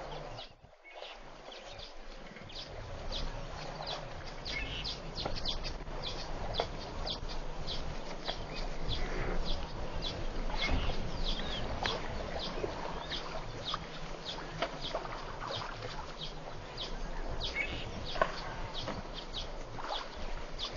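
Wild birds calling over and over, short high chirps about two a second, over a low steady background rumble.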